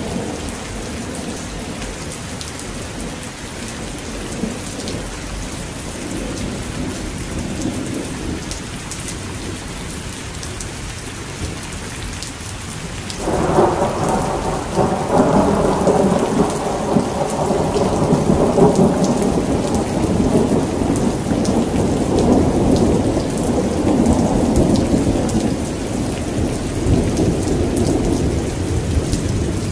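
Heavy rain falling steadily in a thunderstorm. About halfway through, a long roll of thunder breaks in suddenly and keeps rumbling to the end.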